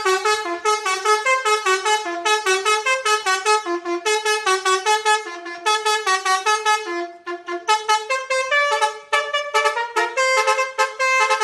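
Basuri telolet horn, a multi-tone musical horn, playing a fast melody of short notes in repeated phrases. The tune changes about seven to eight seconds in to slower, longer-held notes.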